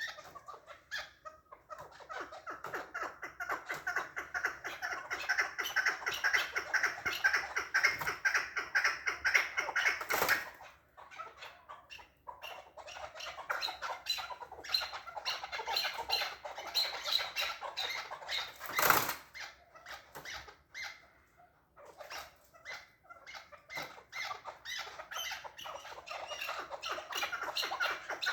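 Chukar partridge calling in long runs of rapid clucking notes, with short lulls, and two sharp knocks about ten and nineteen seconds in.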